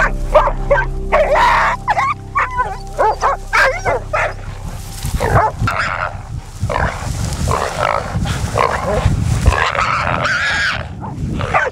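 Wild boar squealing again and again while hunting dogs hold it, mixed with dogs barking.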